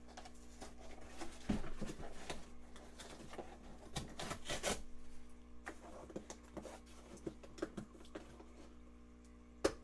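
Corrugated cardboard shipping box being torn open and handled by hand: irregular ripping, scraping and rustling of cardboard, heaviest about halfway through, with a sharp click near the end.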